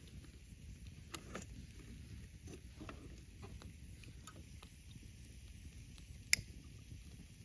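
Campfire of dry sticks burning with a low steady rumble, small scattered crackles, and one sharp pop about six seconds in.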